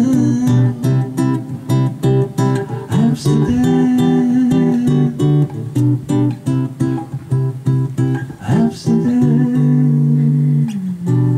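Acoustic guitar strummed and picked in the instrumental close of a folk song, ending on a held final chord near the end.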